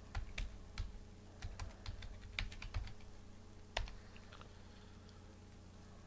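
Computer keyboard being typed on: irregular runs of quick key clicks, stopping for about two seconds near the end.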